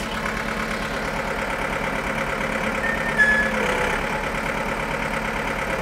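John Deere 4520 tractor's diesel engine idling steadily while the rear hydraulic remote swings the snowplow blade's angle. A short high tone sounds about three seconds in.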